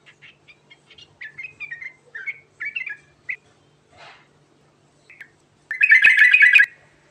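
Yellow-vented bulbul (trucukan) singing: a string of short, bubbly chirped phrases, then about six seconds in a louder, rapid chattering burst lasting just under a second.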